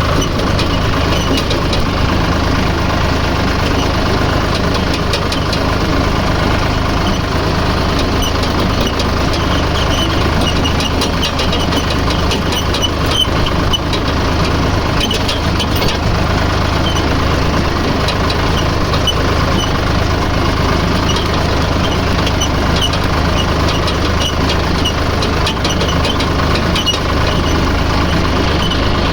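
A motor vehicle's engine running steadily at constant speed, with a low hum and many fine clicks and rattles over it.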